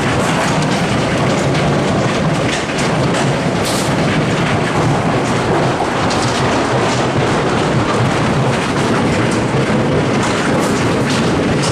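Heavy hail, mostly golf-ball-sized stones, falling hard: a loud, steady clatter of many impacts with sharper cracks scattered through it.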